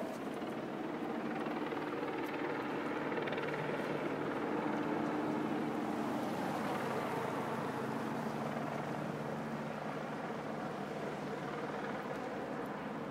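Steady low engine drone, growing louder to a peak about five seconds in and easing off again.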